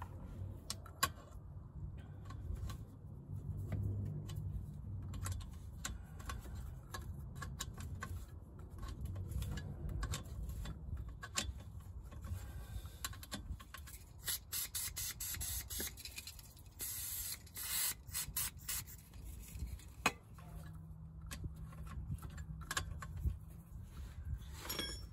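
Small metal clicks and scrapes as a hex key and a plug screw are worked into the rear differential casing of a BMW E30 by hand, with a low handling rumble and a short scraping hiss about seventeen seconds in.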